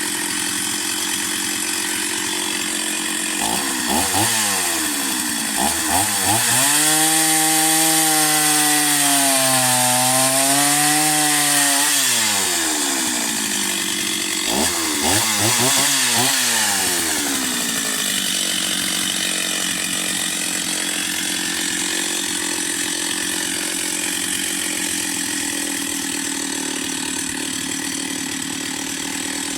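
Stihl 038 two-stroke chainsaw running at a low steady speed, blipped up a few seconds in, then held at high revs for about six seconds, revved once more and allowed to drop back to a steady low speed.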